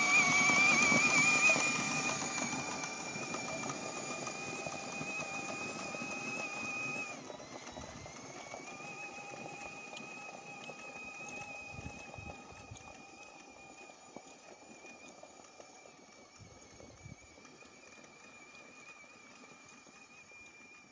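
A steady high-pitched whine from the child's ride-on John Deere pedal tractor, fading as the tractor moves away. About seven seconds in it briefly dips and slides back up in pitch.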